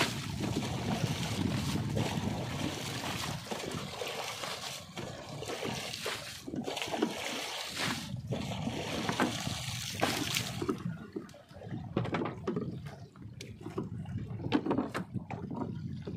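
Wet gill net being hauled by hand into a small wooden fishing boat: water trickling and splashing off the net. In the second half it quiets to a run of small clicks and knocks.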